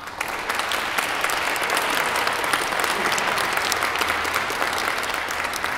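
Audience applauding: the clapping breaks out all at once and keeps up steadily.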